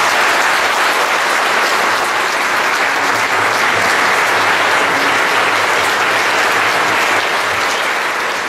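Conference audience applauding steadily in a large hall, a dense even clapping that runs on without let-up and is cut off suddenly just after the end.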